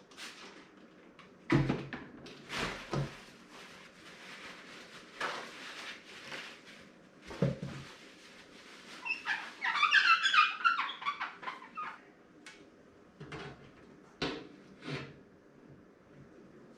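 Knocks, clunks and rustles of computer parts and hardware being handled during assembly, with a louder burst of rattling or crinkling lasting about two seconds around the middle.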